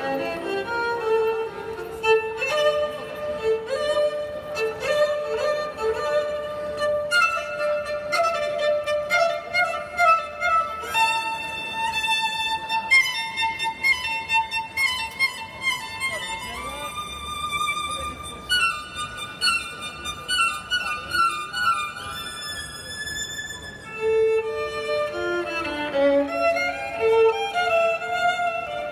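Violin music: a violin playing a flowing melody of many notes.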